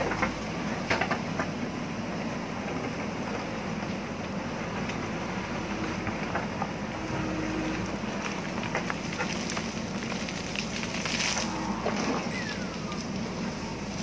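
JCB backhoe loader's diesel engine running steadily under load as the backhoe digs a trench in soil and rock. Sharp knocks and clanks come now and then as the bucket strikes and scrapes stones.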